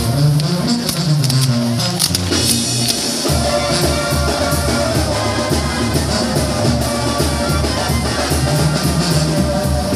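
Band music with brass and drums playing a steady beat.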